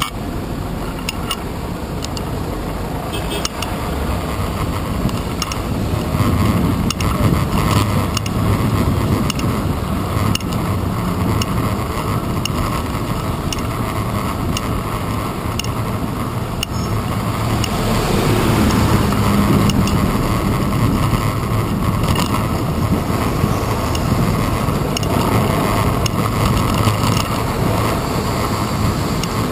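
Busy city street traffic heard from a bicycle-handlebar-mounted GoPro in its housing: a steady rumble of passing cars, taxis and heavy vehicles mixed with road and wind noise, swelling a little about a third of the way in and again past the middle.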